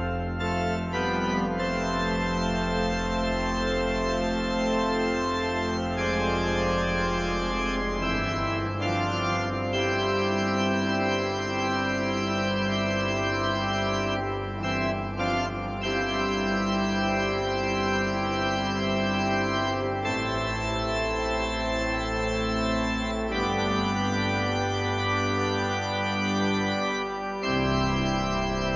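Background music of slow, held organ chords, the bass note changing every few seconds.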